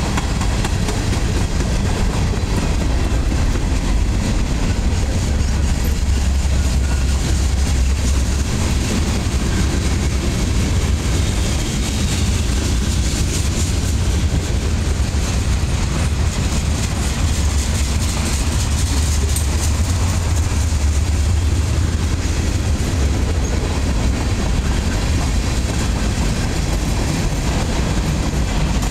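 Freight cars (tank cars and centerbeam flatcars) rolling past close by: a steady, loud low rumble of steel wheels on rail with a constant patter of wheel clicks.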